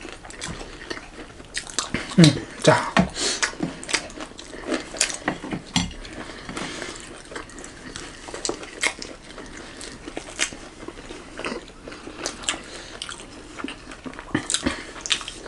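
Two people chewing and biting into fried shyabhale and momo close to the microphone, with frequent wet mouth clicks and occasional clinks of dishes and cutlery.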